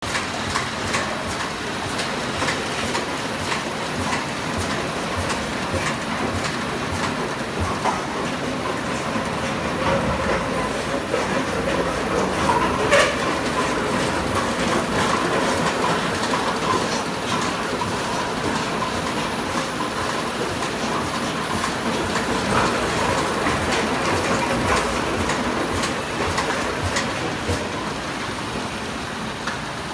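PET bottle unscrambler line running at 120 bottles a minute, feeding bottles into pucks: steady machine noise with a constant clatter of plastic bottles and pucks on the conveyors and star wheels, and one louder knock about midway.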